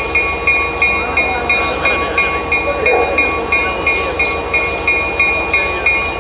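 Diesel locomotive's bell ringing steadily at about three strokes a second, over the low rumble of the engine.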